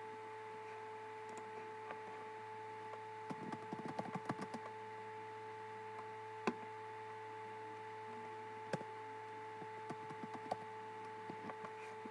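Computer keyboard keys and mouse clicks: a quick flurry of taps about three seconds in, then scattered single clicks, over a steady electrical hum.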